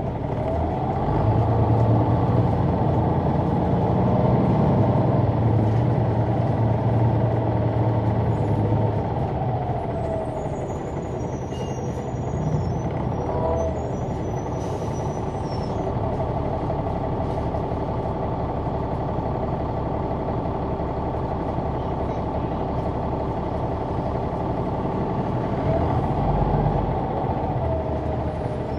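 Caterpillar C-9 ACERT diesel engine and ZF Ecomat automatic transmission of a 2004 Neoplan AN459 articulated bus, heard on board from the back seats. The engine grows louder and climbs in pitch for the first several seconds as the bus accelerates, then runs steadily with light rattles. Near the end it rises briefly once more.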